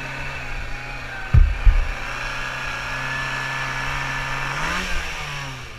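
An off-road buggy's engine runs at a steady pitch while driving over rough ground. Near the end it revs up briefly and then drops back. Two heavy thumps come about a second and a half in.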